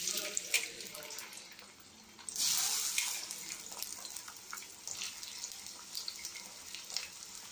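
Chopped onions sizzling as they hit hot oil in a kadai. A louder burst of sizzling comes about two seconds in, then it settles to a steady hiss with small pops and crackles.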